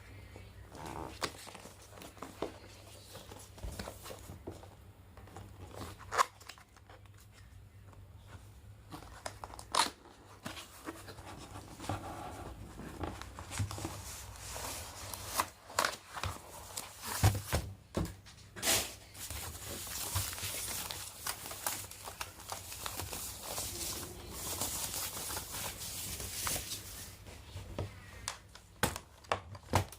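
Keyboard packaging being unwrapped by hand: plastic and paper crinkling and tearing, with scattered knocks and clicks. The crinkling is densest in the second half.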